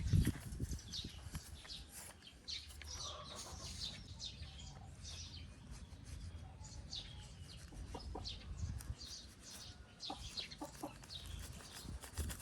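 Birdsong: many short high chirps in quick succession over a low rumble, with a low thump right at the start.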